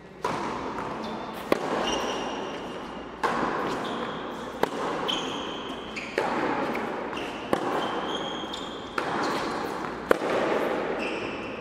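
Tennis rally on an indoor hard court: sharp racket-on-ball strikes about every one and a half seconds, alternating between the two ends, each echoing through the hall, with short high squeaks between the shots.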